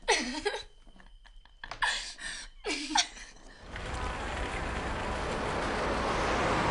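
Girls laughing in short bursts with falling squeals. About three and a half seconds in, this gives way to a steady wash of outdoor traffic noise that slowly grows louder.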